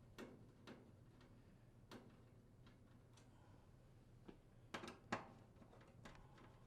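Near silence with a few faint clicks and taps, most of them about five seconds in: a screwdriver working the screws out of the range's induction coil support panel.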